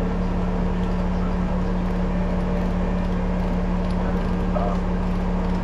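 A machine running steadily with a constant low hum.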